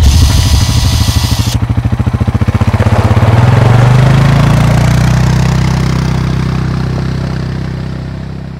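Motorcycle engine running with a fast, even pulse that smooths into a steady low drone about three seconds in, then fades out near the end. A hissing burst sits over the first second and a half.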